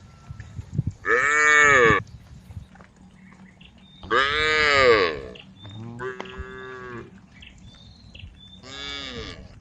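Cows mooing: four separate drawn-out moos, each rising and falling in pitch, the second one the loudest and the last two fainter.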